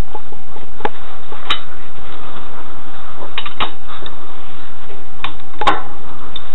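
Scattered sharp metallic clicks and knocks, about six, as a cross-shaped wheel-nut wrench is fitted onto the lug nuts of a steel car wheel and turned. The wheel nuts are being tightened in a crisscross order. A loud steady hiss with a faint steady tone runs under the clicks.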